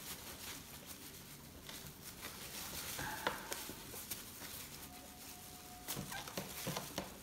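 Thin plastic bag rustling and crinkling as a hand rummages in it, with scattered soft crackles.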